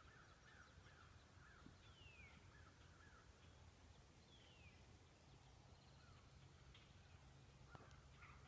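Near silence with faint distant bird calls: a run of quick repeated calls that fades out about three seconds in, and two short falling whistles.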